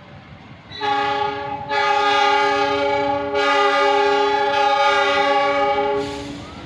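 A CC206 diesel-electric locomotive's horn sounds one long, loud blast of about five seconds, held steady in pitch. It swells about a second in and cuts off near the end, over the low rumble of the slow-moving train.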